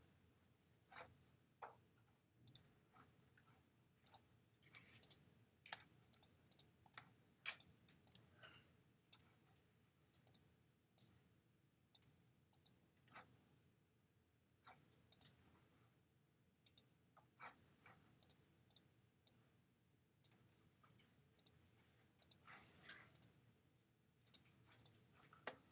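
Computer mouse clicking faintly and irregularly, about one or two sharp clicks a second with a few short pauses.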